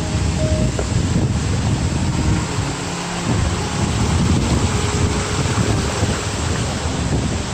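Creek water rushing and cascading over rock ledges: a loud, steady rush with a deep rumble underneath.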